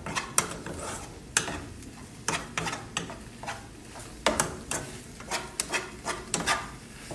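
A utensil scraping and knocking against a frying pan as instant noodles with scrambled egg are stirred and tossed, in a string of irregular short scrapes and clicks.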